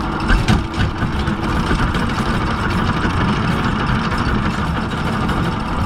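Anchor chain paying out as the anchor is dropped from the bow: a loud, steady, dense rattle.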